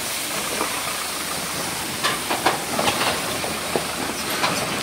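Truck working over a rough mountain road: a steady rushing noise, with a run of short, sharp squeaks and rattles starting about two seconds in.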